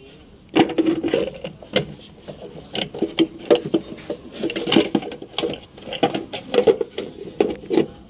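Hard plastic air-cleaner cover being pushed and worked onto its housing over a new paper filter element: irregular knocks, clicks and scraping of plastic on plastic, starting about half a second in.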